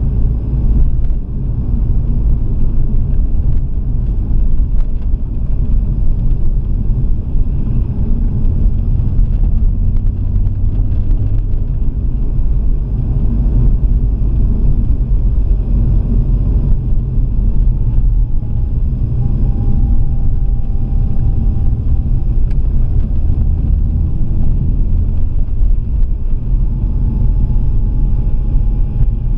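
Alfa Romeo 166 3.2 V6 driving slowly, heard from inside the cabin as a steady low rumble of engine and road noise.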